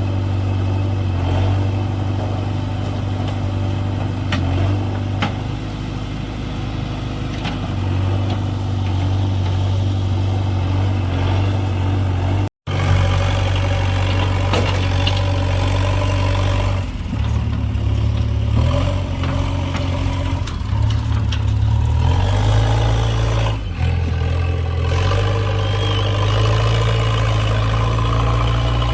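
Heavy diesel engine running steadily, then rising and falling in pitch from about halfway on as it works under varying load. The sound cuts out for a moment near the middle.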